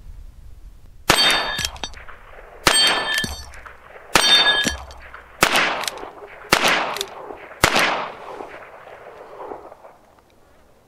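Six shots from a Ruger Wrangler single-action .22 LR revolver firing Remington Thunderbolt rimfire rounds, about a second to a second and a half apart. Each of the first three is followed by the ringing clang of a steel plate being hit; the last three have no ring.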